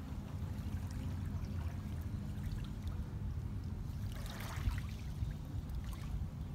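Small waves lapping and trickling over a pebble shore, with a louder wash of water over the stones about four seconds in. A steady low rumble runs underneath.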